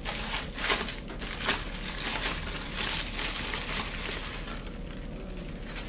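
Plastic bubble wrap crinkling as it is pulled open and unwrapped by hand, with irregular crackles.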